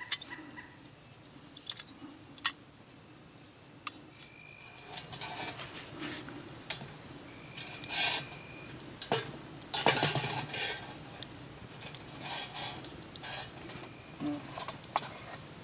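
Small wood fire crackling and popping in a folding steel firebox stove, with scattered clinks and knocks of metal as a stick is worked into the stove to set a tin of handkerchief scraps in the flames for char cloth. Insects trill steadily in the background.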